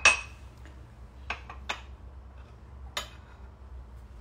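Kitchenware clinking: one sharp metallic clink with a short ring at the start, then four lighter clicks and knocks.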